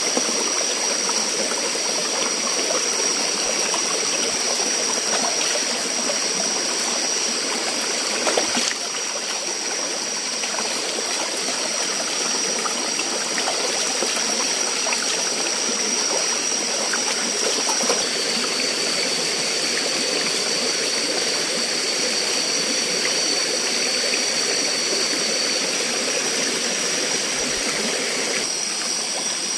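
Steady rush of flowing water, with a steady high-pitched whine over it and a couple of brief knocks.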